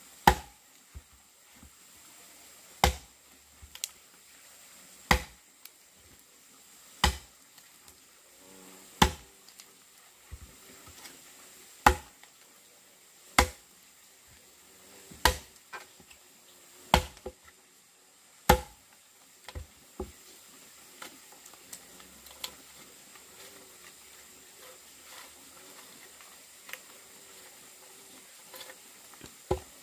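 Axe chopping into a log to hollow it into a wooden trough: about ten sharp strikes, roughly two seconds apart, then fewer and lighter knocks in the second half.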